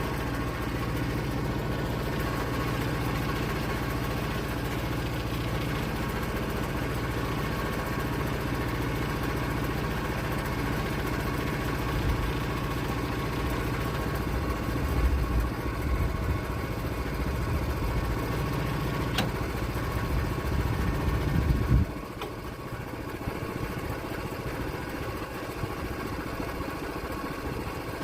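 Engine running steadily with a low rumble that swells now and then. About 22 seconds in, the rumble drops sharply to a quieter, steady running.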